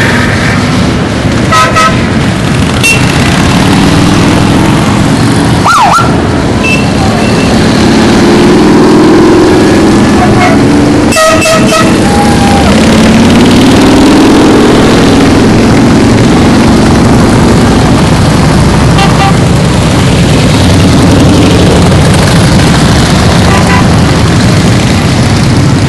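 A long line of motorcycles riding past at low speed, their engines making a steady, dense noise. Short horn toots sound now and then: about 2 seconds in, a cluster around 11 to 12 seconds, and again near 19 and 23 seconds.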